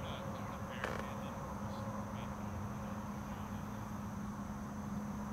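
Steady outdoor background hum with a faint high buzz, and one sharp knock about a second in.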